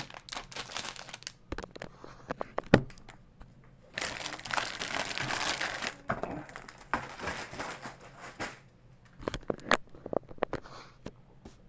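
Clear plastic bags of model-kit runners being handled and crinkling, in stretches, with scattered clicks of plastic parts and one sharp knock about three seconds in.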